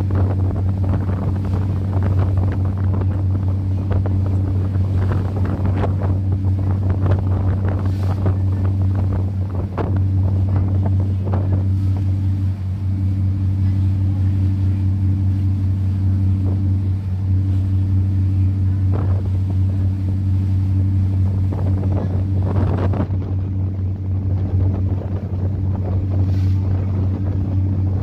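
Cruise boat's engine running with a steady low drone, with wind buffeting the microphone in irregular gusts.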